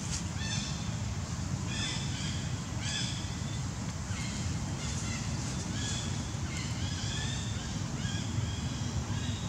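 Short, high, pitched animal calls repeating about once a second, over a steady low rumble.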